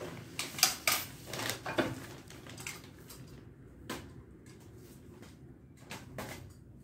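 Plastic wrap and bubble wrap crinkling and rustling as a wrapped chair is handled, with a busy run of crackles in the first two seconds and a few scattered ones later.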